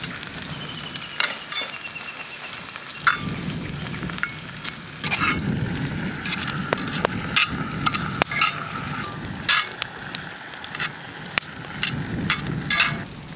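Wood fire crackling in a fire-pit grill, with sharp pops scattered throughout, while onions fry in a small skillet set over the flames.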